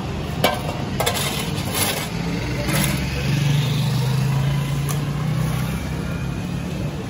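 Street rubbish being gathered into wheelbarrows, with scattered knocks and scrapes. Under it, from about three seconds in, a motor vehicle's engine runs with a steady low hum.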